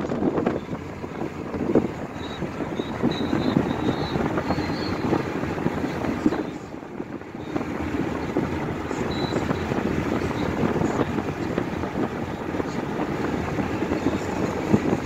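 Steady road and wind noise inside a car's cabin at highway speed, briefly quieter about seven seconds in.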